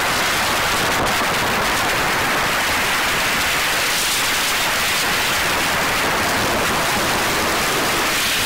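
Steady hiss of wind rushing over the microphone of a camera mounted on a motorcycle at speed, with no engine note standing out.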